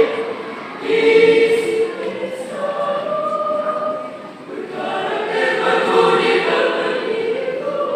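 Mixed four-part choir of sopranos, altos, tenors and basses singing together in sustained phrases; the sound falls away about four seconds in, then swells again.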